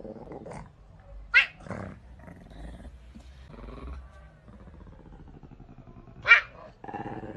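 A cat growling low and steadily, broken by two short, sharp, louder cries: one about a second and a half in, another near the end.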